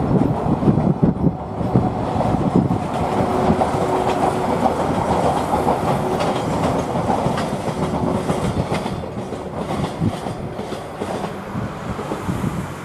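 Freight train rolling past at close range, its wheels clicking over the rail joints in a steady clickety-clack over a heavy rumble that eases off in the last few seconds.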